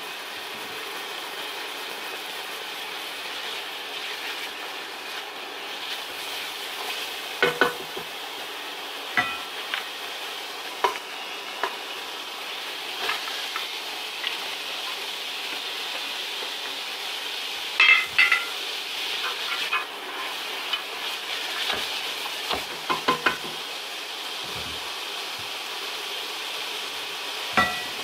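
Chopped onion sizzling in olive oil in a stainless steel pot, a steady frying hiss. Sharp metal clinks come now and then as diced carrot, celery and pepper are tipped in from metal trays and stirred.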